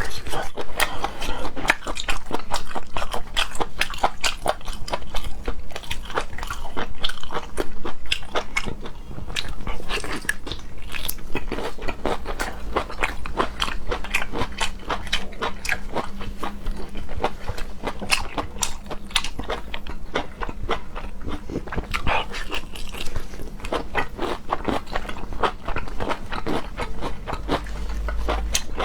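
Close-miked chewing and biting of fatty pork intestine: a dense, unbroken stream of sticky mouth clicks.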